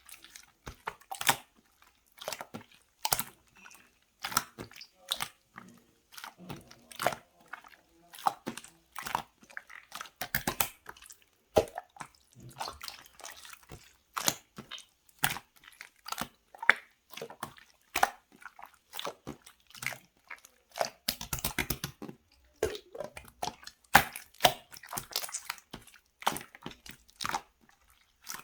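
Clear slime being squeezed and pressed by hand, giving a string of sharp wet clicks and pops, about one or two a second, with a quick run of clicks a little past the middle.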